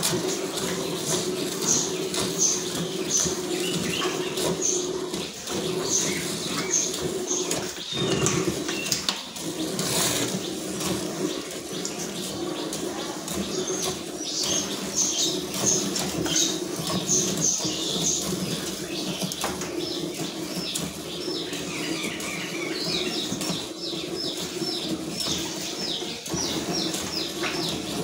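A cow being hand-milked into a steel pail: jets of milk squirt into the froth in a quick rhythm of about three to four squirts a second, over a steady low hum.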